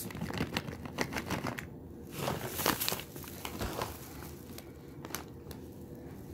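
Trail mix of peanuts, raisins and candy-coated chocolates poured into a stemmed glass dessert cup, the pieces clicking and rattling against the glass for about three seconds, then only a few scattered clicks.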